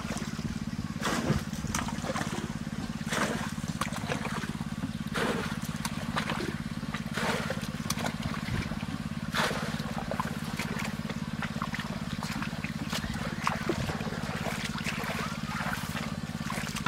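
Water splashing and trickling in a shallow ditch in short irregular bursts, over a steady low motor hum.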